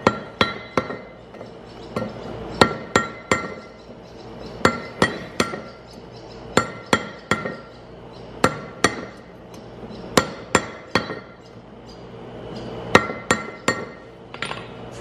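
Hand hammer striking a hot forge-welded steel ring on a steel cone mandrel, chamfering its edges. The blows come in quick bursts of three or four every couple of seconds, each with a short metallic ring.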